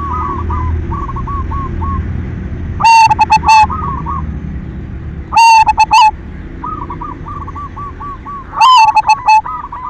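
Zebra doves (perkutut) singing: a steady run of short repeated coo notes. Three much louder, close coo phrases break in, about three seconds in, halfway through, and near the end.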